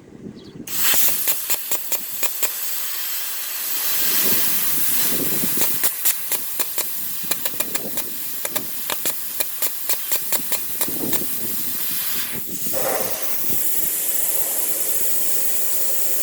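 Plasma cutter firing with its air pressure and heat turned up: a steady rush of compressed air starting about a second in, with rapid crackling clicks from the arc through most of it. The hiss breaks off briefly about three-quarters through, then carries on.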